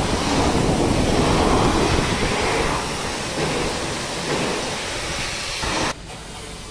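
Pressure-washer jet spraying water onto a car body: a loud steady hiss and rush that cuts off abruptly about six seconds in.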